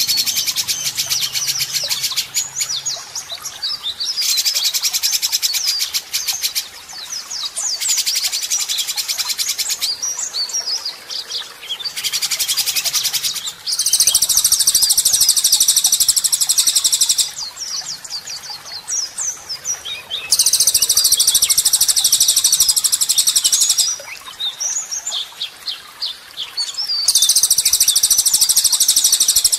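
White-rumped shama singing: bursts of harsh, rapid-fire rattling notes ("tembakan kasar", rough shots), each lasting two to three seconds, repeated every few seconds and loudest in the second half, with short varied whistled phrases between them.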